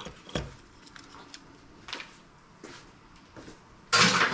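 Light, scattered clicks and knocks of small plastic and metal parts being handled, then a louder clattering rattle near the end.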